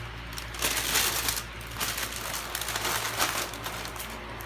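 Plastic packaging rustling and crinkling as it is handled, in irregular bursts, over a steady low hum.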